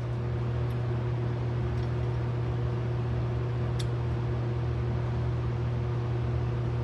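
Steady low mechanical hum, like a running fan or motor, with a few faint light clicks, the sharpest about four seconds in.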